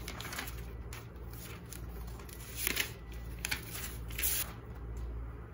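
Paper and cardboard packaging of an Apple iPad box being handled: the paper wrap and inner cardboard tray rustle and slide as they are lifted out. There are several short rustles and scrapes, the loudest a little before three seconds in and at about four seconds in.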